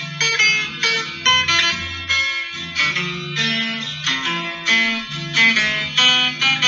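Instrumental passage of a Colombian bambuco played on plucked guitars, with notes picked in a quick, even rhythm.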